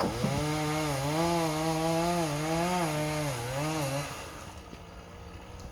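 Two-stroke chainsaw running at high revs, cutting pine, its pitch wavering up and down under load. The engine note drops away about four seconds in.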